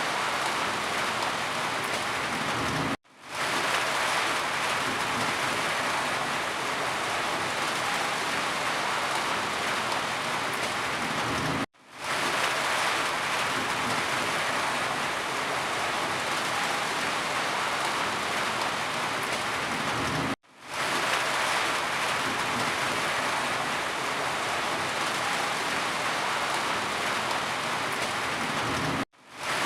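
Steady heavy rain. It cuts out suddenly four times, about every nine seconds, then swells back in within half a second, the seams of a looped recording.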